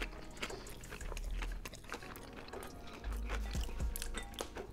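Crunchy chewing of a Hot Cheetos-crusted fried chicken sandwich, with scattered crisp crackles, over background music.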